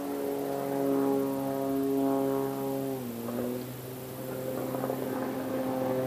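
Propeller aircraft droning steadily, its pitch dropping a little about three seconds in.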